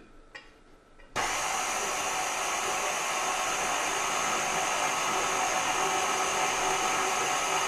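KitchenAid Classic stand mixer switched on about a second in, then running steadily at its lowest speed with a motor whine as its dough hook kneads bread dough.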